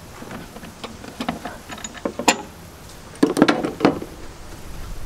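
Metal hand tools clicking and clinking as they are handled: a ratchet is taken out of a plastic broom-holder clip and tools are moved about. There is a sharp click about two seconds in, then a quick run of knocks and clinks around three and a half seconds.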